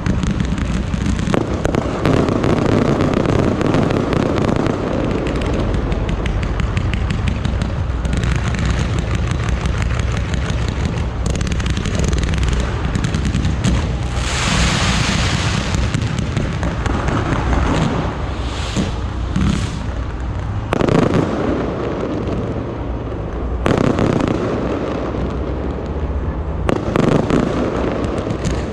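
Fireworks display: a dense, continuous run of bangs and crackles from shells and ground fountains. There is a loud hissing rush about halfway through, and heavier bursts follow near the end.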